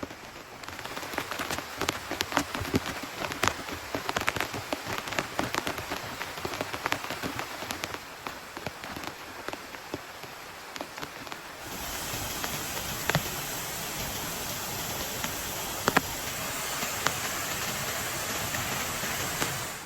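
Rain falling, with many separate heavy drops pattering on a surface at first. About twelve seconds in, a steadier, louder hiss starts suddenly and holds, with only a few drops standing out.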